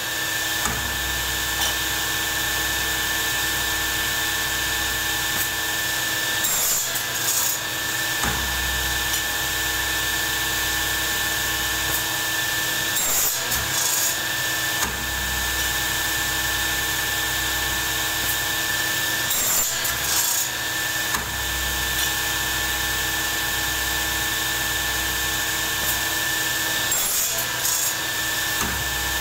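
A powered workshop machine running steadily with a high whine. A brief harsh burst, like a cut or grind, comes about every six and a half seconds, four times in all.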